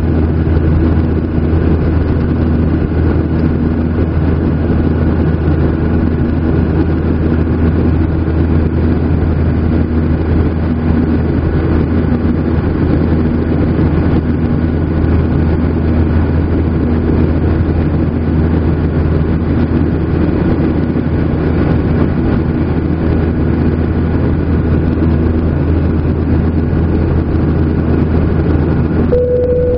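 Steady engine drone of a Boeing 737-800's CFM56 turbofans heard inside the passenger cabin, a deep hum with a few steady whining tones. A brief single tone sounds near the end.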